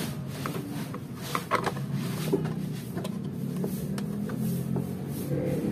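Plastic gearbox cover of a stand mixer being set and pressed into place by hand over the drive gear: a few light plastic clicks and knocks, loudest about a second and a half in, over a steady low background hum.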